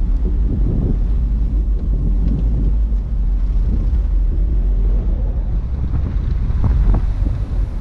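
Low, steady rumble of a 2003 Subaru Forester driving over a rough, snow-covered dirt track, with wind buffeting the camera microphone mounted outside the car. A few light knocks come near the end.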